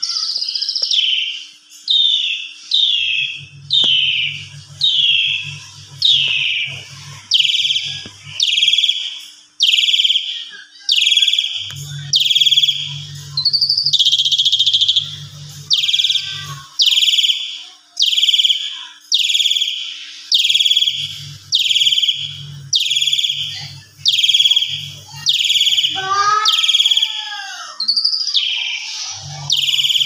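Javan pied starling (jalak suren) singing an agitated, aroused song: a loud, steady series of harsh falling calls at about one per second. This is the excited song used to provoke other starlings into singing.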